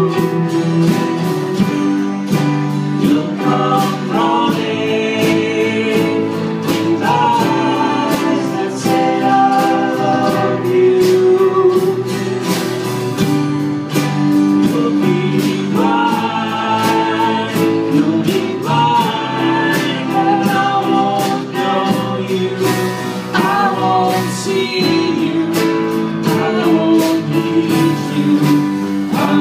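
Live folk ensemble playing a song: several voices singing together over strummed acoustic guitars with a steady beat.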